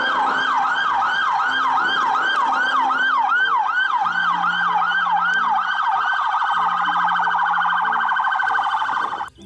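Electronic police-car siren sounding a repeating falling wail, about three sweeps a second, that turns into a fast warble near the end and cuts off suddenly.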